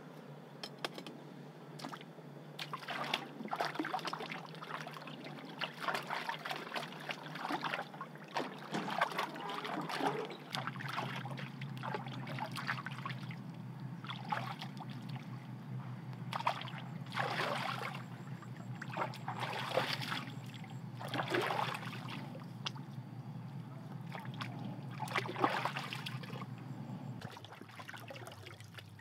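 Water splashing and sloshing in irregular bursts as a person wades through a shallow muddy pool and grabs at fish with bare hands.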